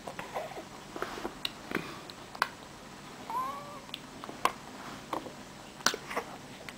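A baby being spoon-fed puree: scattered wet mouth clicks and lip smacks, with one short whiny vocal sound that rises and falls about three seconds in.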